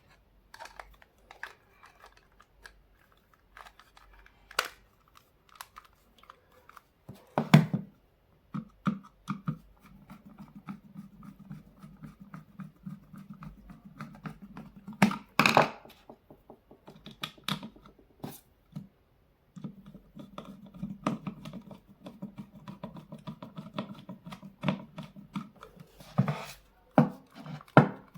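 Scattered clicks, knocks and scraping of hands working on a cordless drill and its battery pack, with two sharper knocks, one about a quarter of the way in and one about halfway. A faint steady hum runs under much of the second half.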